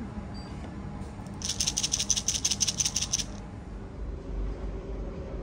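Coins clattering out of a machine's coin dispenser: a quick run of sharp metallic clicks, about ten a second, for just under two seconds. A low rumble comes in near the end.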